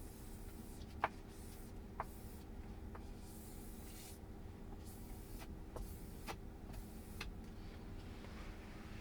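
Faint sharp taps and clicks with short stretches of soft rubbing, from hands working a glass screen protector on a car touchscreen. The sharpest click comes about a second in, over a low steady hum.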